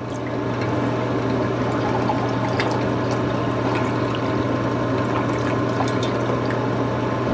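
Chicken broth being poured in a steady stream into a glass measuring cup.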